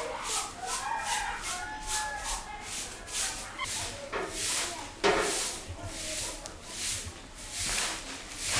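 A broom sweeping a yard in quick, even strokes, about two to three a second, with chickens clucking over the first few seconds. A louder knock comes about five seconds in.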